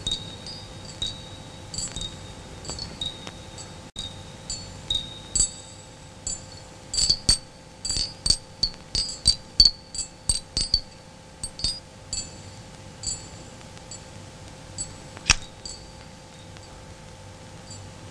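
High, glassy tinkling chime notes, scattered at first, then a quick cluster of clinks in the middle and one stronger strike later, over a faint steady hum.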